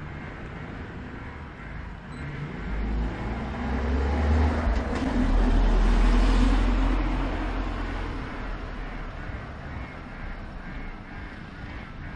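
A motor vehicle passes by, rising to its loudest about six seconds in and then fading away.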